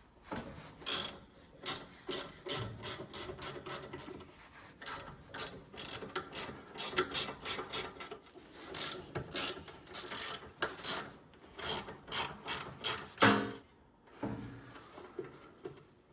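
Retractable air hose reel and its arm being lowered: a long, irregular run of ratcheting clicks and metal rubbing, with one louder clunk about 13 seconds in.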